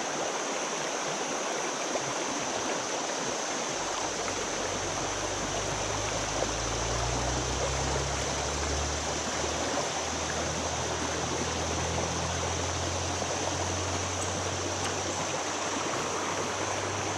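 River water rushing steadily over a shallow riffle. A low steady hum joins it from about four seconds in.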